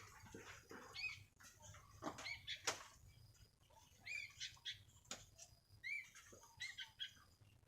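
Sooty-headed bulbul (kutilang) calling: short chirping notes repeated throughout, with a few sharp clicks among them.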